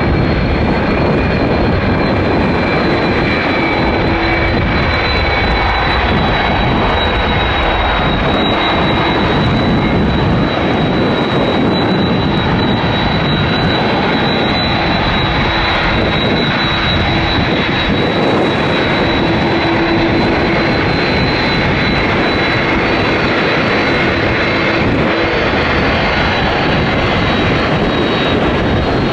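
Jet engines of a KLM Airbus A330-300 airliner running loudly and steadily, a dense rushing noise with a steady high whine over it.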